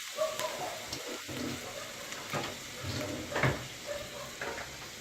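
Chopped garlic, ginger and chili frying in hot butter, ghee and olive oil with a steady sizzle, while a utensil scrapes and knocks against the pan several times as they are stirred.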